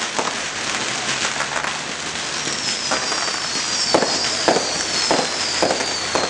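Fireworks display: a steady crackle of bursting shells, with a run of about six sharp bangs in the second half and high whistles falling in pitch over them.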